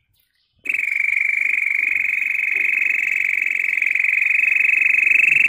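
A person imitating birdsong by mouth: a long, fast-trilled high whistle that starts sharply a little under a second in and rises slowly in pitch.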